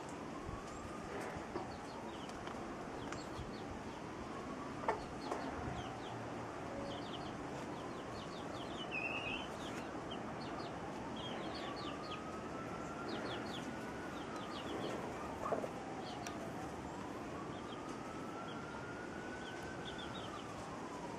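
A hen and her chicks: the chicks peep in short, high cheeps all through, with a few louder clucks from the hen. Behind them a distant siren wails, rising and falling slowly every few seconds.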